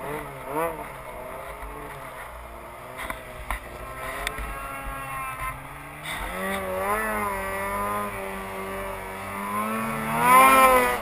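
Two-stroke mountain snowmobile engine under the rider, running at modest, wavering throttle at first, then held at higher revs from about six seconds in and revving up sharply near the end as it climbs through deep powder.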